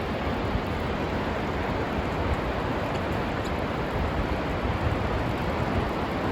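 Wind blowing on the microphone: a steady rush with uneven low buffeting.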